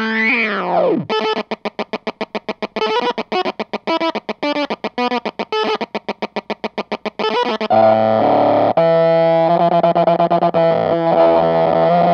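Electric guitar through a Chase Bliss Bliss Factory fuzz pedal: a pitch swooping down in the first second, then rapid chopped staccato fuzz notes at about five a second, and from about seven and a half seconds in, sustained thick fuzz chords.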